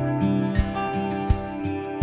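Background music: a gentle acoustic guitar tune over a bass line, with a steady beat about every three quarters of a second.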